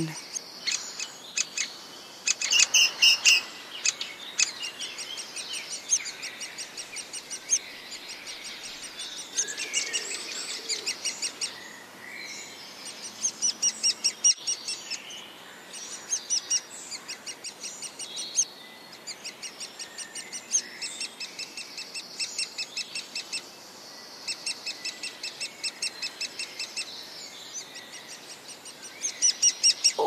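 Great spotted woodpecker chick begging from its nest hole: rapid trains of short, high chirps, each run lasting about a second and repeated every second or two, loudest a few seconds in.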